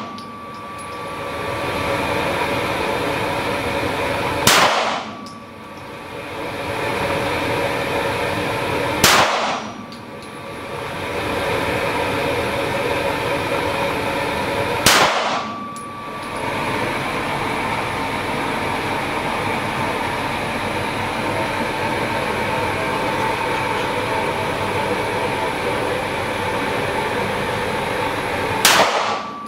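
Four single shots from a Heckler & Koch P30L pistol on an indoor range, several seconds apart: about four and a half seconds in, at about nine and fifteen seconds, and near the end. Each sharp crack is followed by a brief dip in the steady background hum.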